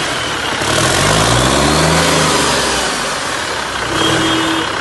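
Cummins L10 inline-six turbo diesel running on a test stand, its revs rising about half a second in and dropping back toward idle a couple of seconds later. A steady higher tone joins in near the end.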